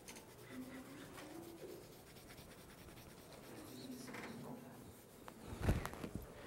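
Chalk rubbing faintly on a chalkboard as a small angle mark is coloured in. A few low knocks come close together near the end.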